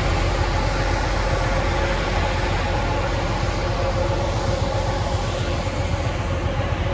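Steady machine drone with a few steady whining tones above it, unchanging throughout.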